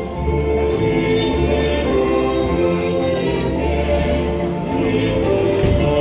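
Choir singing a hymn in harmony, with sustained low notes beneath the voices; a brief knock near the end.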